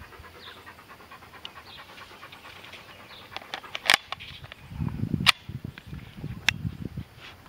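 KWA KMP9 gas blowback airsoft submachine gun fired in single shots: three sharp cracks about a second and a quarter apart, starting about four seconds in, after a few lighter clicks.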